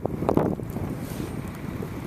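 Blizzard wind buffeting the microphone: an uneven low rumble in gusts that settles into a steadier rush after about half a second.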